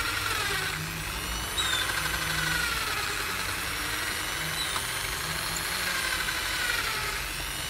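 Corded electric hand drill in a drill-press stand, running at low speed as it bores out a stripped bolt hole in a motorcycle engine crankcase to take a thread insert. The motor whine is steady, drifting slightly down in pitch now and then.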